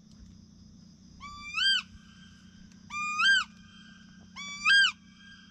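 A bird calling three times, about a second and a half apart. Each call holds one clear note, then swoops up and drops away.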